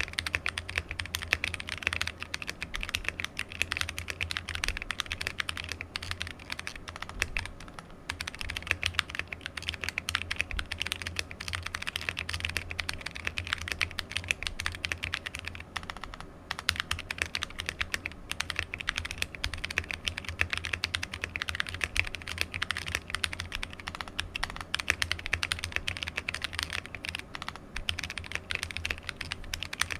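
Steady typing on a plateless 60% mechanical keyboard fitted with stock AEboards Naevy tactile switches, whose extended-pole stems hit the housing on each press. The clicks run continuously with a few short pauses.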